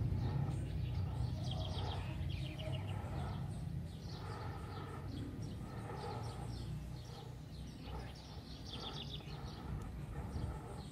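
Birds chirping in quick runs of short high notes over a steady low rumble.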